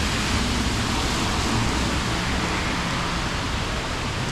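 Steady hiss of heavy summer rain, with a low rumble underneath.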